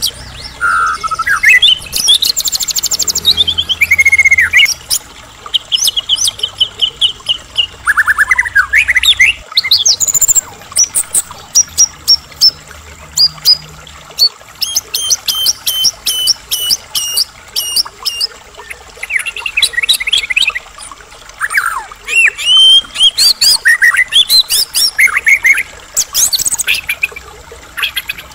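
White-rumped shama in full song: a continuous, varied run of loud whistles and slurred glides, with fast rattling trills and series of quickly repeated notes.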